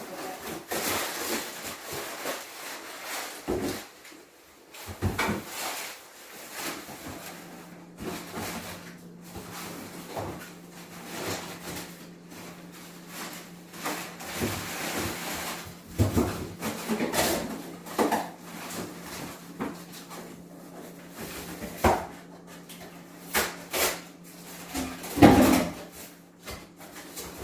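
Cardboard box being broken apart and handled by hand: irregular rustling and tearing with repeated knocks and clicks, the loudest knock near the end. A steady low hum runs behind from several seconds in.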